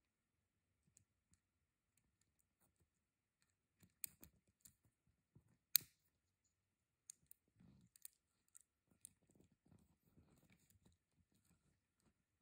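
Faint metallic clicks of a black metal link watch bracelet and its spring-loaded micro-adjust clasp being worked by hand, with one sharp click a little before halfway and soft handling rustle later on.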